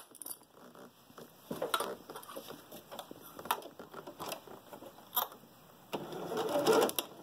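Cotton fabric rustling with a few sharp clicks as the clipped pieces are handled and set under the presser foot of a domestic sewing machine. About six seconds in, the sewing machine starts stitching.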